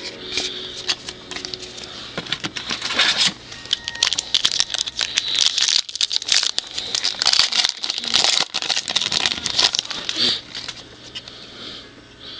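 Trading cards and their foil pack wrappers being handled: irregular crinkling, rustling and clicking of cards being flipped through and packs being opened, busiest in the middle.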